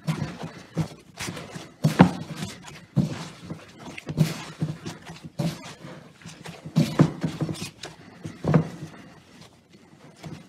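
Panettone dough being kneaded by hand in a glass bowl: irregular soft thuds as the sticky egg-rich dough is pressed and slapped down against the bowl.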